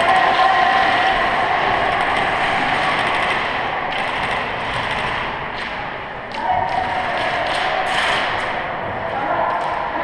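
Airsoft guns firing during a game: sharp taps and thumps over a steady background din, with the taps bunched between about five and nine seconds in.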